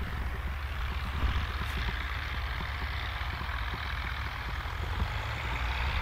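Fiat 615DT tractor's diesel engine running steadily under load while pulling a three-furrow plough through the soil.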